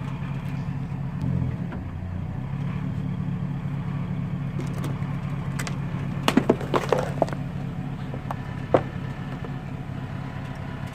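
Truck engine idling steadily as a big off-road tire rolls onto a cardboard box of frozen Hot Pockets and crushes it: a quick run of crackles and pops a little past halfway, then one more sharp crack about two seconds later.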